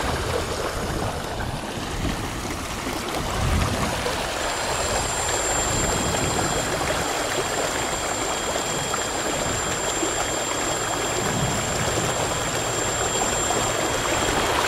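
Water rushing and splashing along the hull of a kayak running under electric outboard power: a steady wash of wake noise. A thin, high, steady whine comes in about four seconds in.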